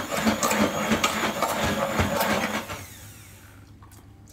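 Hand blender puréeing hummus in a tall jug, running with a rattling whirr, then switched off about two-thirds of the way through.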